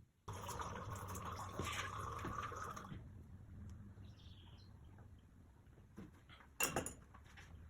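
Water running steadily for about three seconds, then cutting off sharply. A single sharp knock follows near the end.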